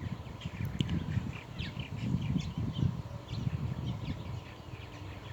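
Purple martins chattering in many quick, short chirps, over a steady low rumble.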